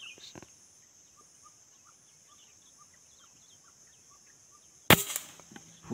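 A steady high insect hum with scattered faint bird chirps, then, about five seconds in, a single sharp air-rifle shot with a brief ring-out.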